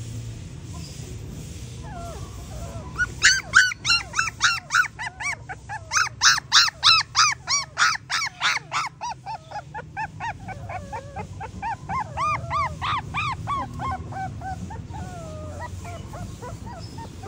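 German Shorthaired Pointer puppy crying in a rapid run of short, high squealing yelps, about four or five a second, starting about three seconds in. The calls then fade into softer, lower whines.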